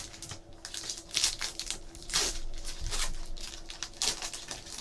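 Trading card pack wrappers crinkling and tearing, with cards being handled, in a series of irregular rustles.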